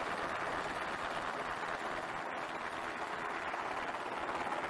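A steady, even rushing noise of wind and rotor wash from a helicopter hovering overhead.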